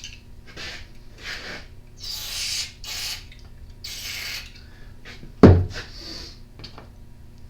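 Aerosol carburetor cleaner sprayed in about half a dozen short hissing bursts onto the carburetor jets, with one sharp loud knock about five and a half seconds in.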